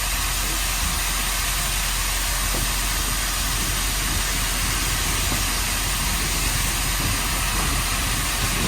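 Standard-gauge industrial steam locomotive, Hudswell Clarke No. 31, working hard at low speed up a steep gradient of about 1 in 13. It is heard as a steady hiss over a low rumble.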